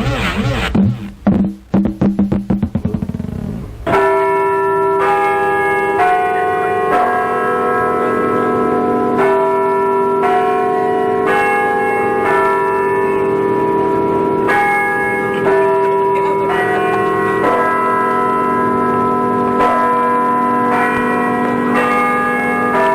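A comic sound effect: a fast rattle of clicks that ends in a rising whoop. Then church bells start ringing about four seconds in, with bells of different pitches struck one after another about once a second, each tone ringing on under the next.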